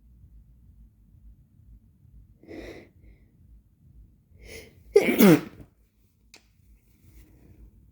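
A person's sneeze: two short voiced gasps as the sneeze builds, then one loud sneeze whose voice falls sharply in pitch.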